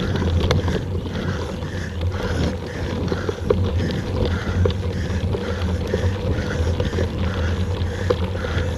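Mountain bike rolling over a dirt trail, heard from the bike's own camera: a steady low wind rumble on the microphone, with tyres crunching and the bike rattling, plus sharp clicks now and then. A faint mid-pitched pulsing repeats about twice a second.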